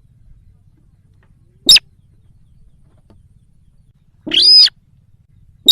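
Bird-lure recording of the sintar sawah's call, played loud: a short sharp note, then about two and a half seconds later a longer, half-second call, then another short note at the very end. A faint low hum lies underneath.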